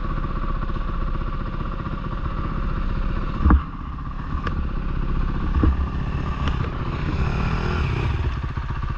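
Dirt bike engine running at a steady low speed, with a few sharp knocks, the loudest about three and a half seconds in.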